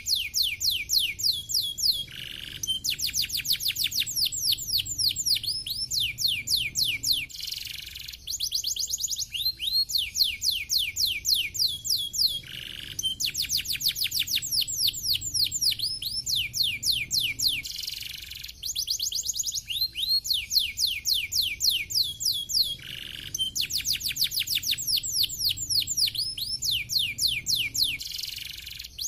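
Domestic canary singing: fast rolling trills of quick, high, downward-sweeping notes, about ten a second, in phrases a few seconds long broken by short pauses.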